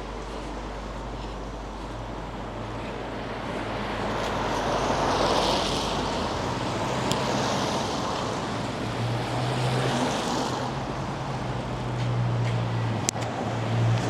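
Outdoor traffic noise with a vehicle engine running nearby, its low hum getting louder in the second half.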